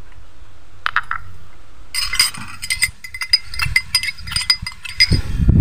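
Metal spoon stirring in a glass of salt and hot water, clinking quickly and repeatedly against the glass. There are a couple of knocks about a second in, and the clinking runs from about two seconds in to about five.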